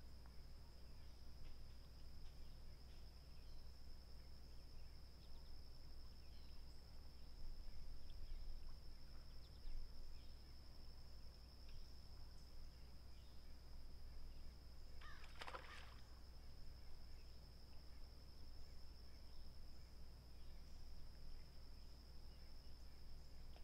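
Quiet lakeside dawn ambience: a steady high-pitched insect trill, likely crickets, with faint scattered bird chirps and a low background rumble. One brief, louder sound comes about fifteen seconds in.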